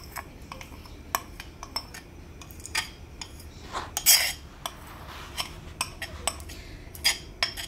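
A metal spoon scraping thick condensed milk out of a bowl into a metal pot, with scattered clinks and taps of spoon and bowl against the pot. There is a longer scrape about four seconds in.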